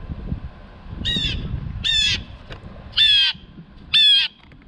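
Blue jay giving four harsh jeer calls, about one a second, the last two loudest.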